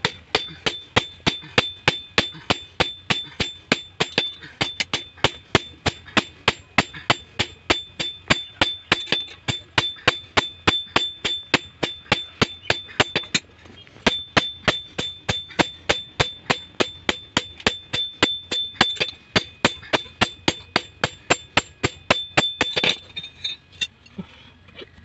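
Hand hammer forging hot leaf-spring steel into a khurpi blade on an iron post anvil: steady blows at about three a second, each with a ringing clang. There is a short break about halfway through, and the hammering stops near the end.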